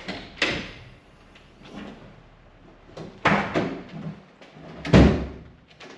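Latch clicks and clunks as a Leer truck camper shell's rear glass hatch is unlatched and swung up, then a loud, deep thump about five seconds in as the pickup's tailgate drops open.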